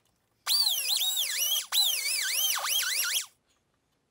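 Small handheld power tool deburring the edge of a freshly hole-sawn opening in a car's firewall: a high motor whine whose pitch dips and rises again and again. It runs in two stretches with a brief stop in the middle.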